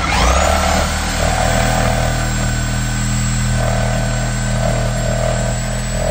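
Electric power tool spinning up and cutting steadily with a high whine for about six seconds, then winding down as it is released near the end.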